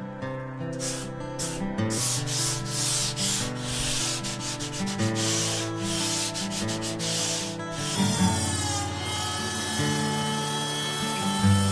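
Sanding on a surfboard being shaped by hand: rhythmic back-and-forth rubbing strokes, about two a second, that stop about three quarters of the way through. Background music runs underneath.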